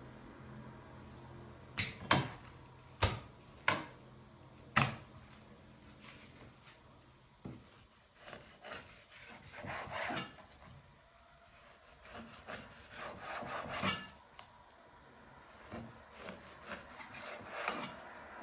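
A handful of sharp knocks, then irregular bouts of scraping and rubbing, like something hard being worked against a wooden surface.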